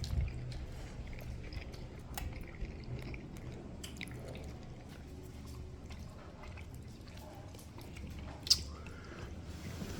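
A person chewing food, with small wet mouth clicks over a low steady hum. One sharp, louder click comes about eight and a half seconds in.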